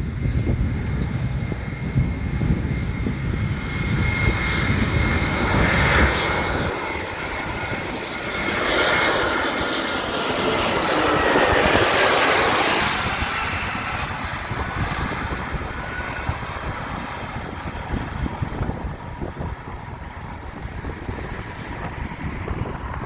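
Jet airliner passing by, its engine noise swelling to a peak about halfway through and then fading, with a high engine whine that drops in pitch as it goes past. Wind buffets the microphone for the first few seconds.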